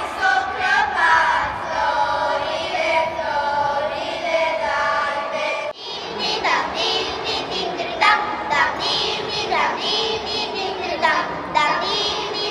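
A group of children singing a Romanian Christmas carol (colindă), with a short break a little before halfway before the singing picks up again.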